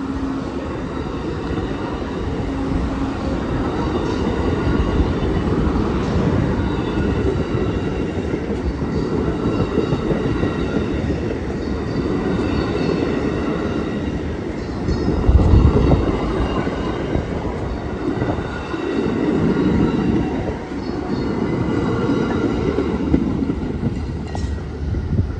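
Amtrak passenger cars rolling past at track side: a steady rumble of steel wheels on rail, swelling a little a couple of times, with a faint high squeal from the wheels.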